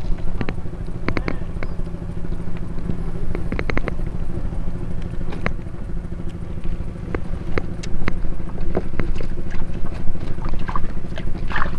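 A small engine running steadily with an even low hum, with sharp clicks scattered over it, some in quick triples.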